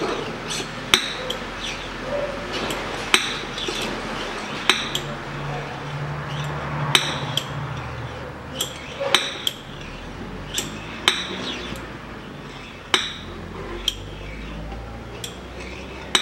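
Hand oil pump being worked to force gear oil through a hose into a transfer case: a sharp metallic clack about every two seconds, with lighter clicks between strokes.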